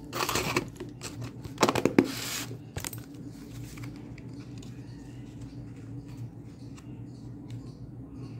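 Close rustling handling noise, loudest in two bursts in the first two and a half seconds, with a few sharp clicks. After that only a steady low hum remains, from a ceiling fan.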